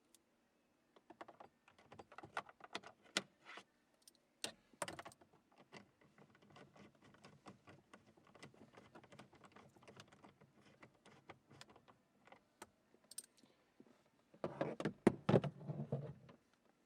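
Light, rapid clicking and rattling of hand work on the truck's plastic dash trim: the instrument cluster being fitted back in and its screws started. A louder burst of clatter comes near the end.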